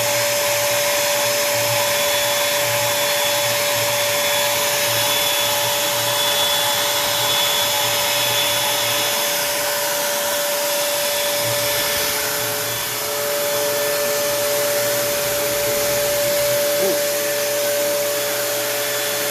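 Router spindle of a Onefinity Woodworker CNC machine running at high speed while cutting a sign, a steady high whine over a rush of noise. A second, lower tone joins a little past the middle.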